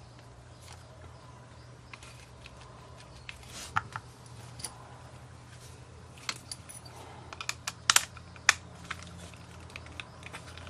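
Small plastic and metal parts of a disassembled mini body massager being handled, giving scattered clicks and taps, busiest a little past the middle, over a steady low hum.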